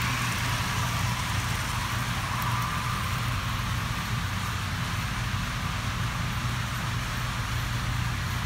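Steady low hum with an even hiss over it, the running noise of an HO-scale model railroad layout in operation.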